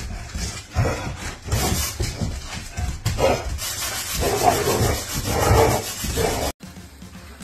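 A dog barking several times in play, with scuffing and rattling sounds beforehand. The sound cuts off abruptly shortly before the end.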